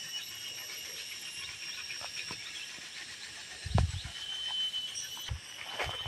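Insects making a steady high-pitched drone, with a few low thumps, the loudest about four seconds in.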